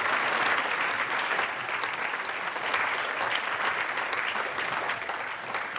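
Crowd applauding steadily: a dense wash of clapping.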